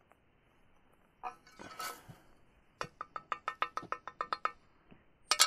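Rifle cartridge case tapped rapidly against a steel shovel blade: fast light metallic clinks, about seven a second, each with a short ring. A brief scrape comes about a second in and a harder strike near the end. The tapping knocks the old powder out of the cartridge.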